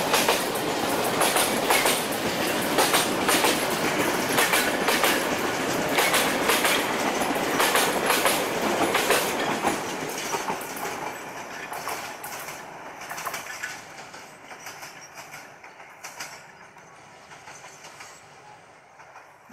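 Loaded container flat wagons of a freight train rolling past close by on metre-gauge track, their wheels clacking over the rail joints. About halfway through the brake van passes and the sound fades as the train draws away, leaving faint, scattered clicks.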